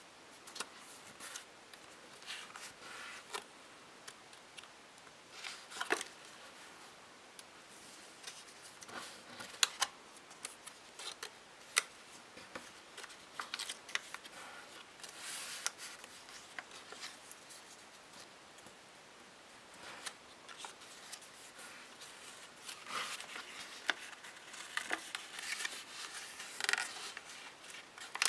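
Sheets of white origami paper being folded and creased by hand: soft rustling and crinkling, with scattered sharp crisp snaps as the creases are pressed flat.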